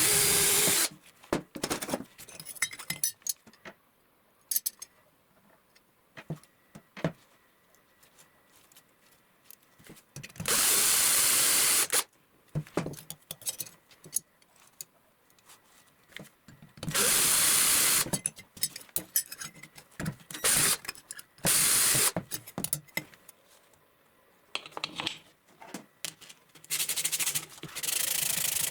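A power tool run in short bursts of one to two seconds, about six times, with small clicks and knocks of handling in between.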